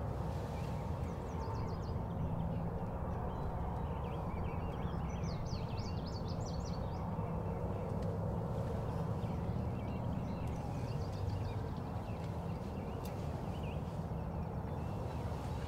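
Small songbirds chirping in quick high twitters, a few separate times, over a steady low rumble.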